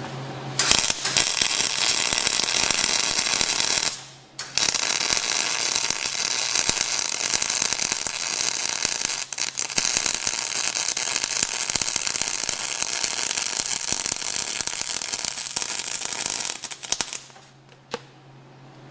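Lincoln MIG welder's arc crackling as a weld bead is laid on steel: a short run of about three seconds, a brief stop, then a steady run of about twelve seconds that cuts off near the end.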